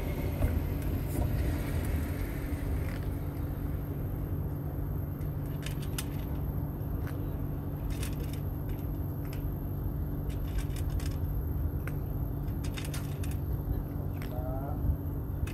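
A cat eating from a stainless steel tray: scattered small clicks of licking and chewing, over a steady low hum.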